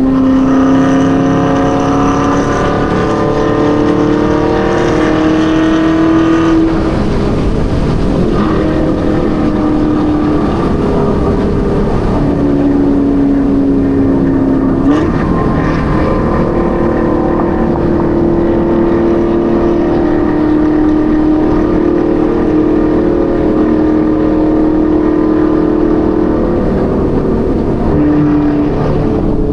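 Chevrolet Camaro ZL1's supercharged V8 pulling under acceleration, its note climbing in pitch for the first six or so seconds, then falling away and settling into a steady pitch at cruise, with changes in pitch around the middle and near the end. A constant low road and tyre rumble runs under it.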